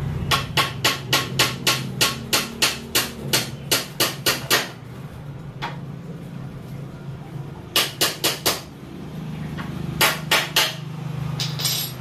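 Small hammer tapping nails into a wooden birdcage frame of mahogany and teak. A quick run of about sixteen light taps at roughly four a second, a single tap, then bursts of five and three taps.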